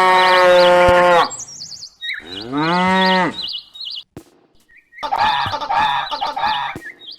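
Cow mooing: a long held moo, then a second moo that rises and falls in pitch, then a shorter wavering call, with small birds chirping over them.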